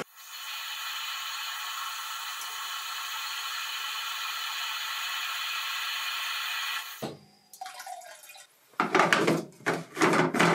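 Water running steadily into a boiler's plastic feed-tank reservoir as the tank is topped off, fading out about seven seconds in. Near the end comes a quick run of sharp knocks and clatters as the tank is handled.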